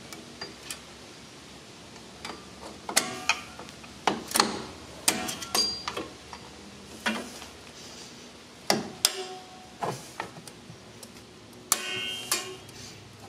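Scattered metal clicks and clinks, some with a short ring, as a brake spring tool is hooked and levered against the return springs and hardware of a drum brake.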